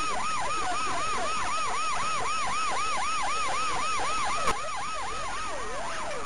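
Police car siren on a fast yelp, sweeping up and down about three and a half times a second. About four and a half seconds in there is a sharp click, after which the siren is quieter and slower wails overlap.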